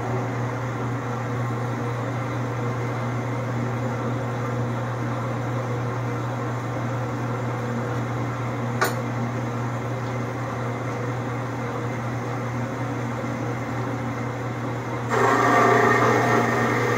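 Horizontal metal-cutting bandsaw running with a steady motor hum, a single sharp click about halfway. About 15 s in, the blade bites into the hot-rolled steel plate and a louder rasping cutting noise starts.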